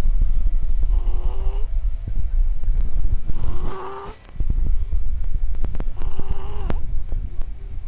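Snoring in sleep: a low rasping rumble with a squeaky, slightly rising whistle-like note on each breath, three times about two and a half seconds apart, with a few small clicks near the last one.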